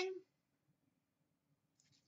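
Near silence: quiet room tone, with a faint rustle of handling trading cards starting near the end.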